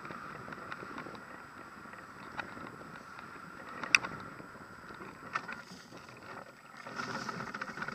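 Wind rushing over a camera fixed to a hang glider's wing in low flight, with a few sharp clicks and rattles from the glider's frame, the loudest about four seconds in. The rush grows louder near the end.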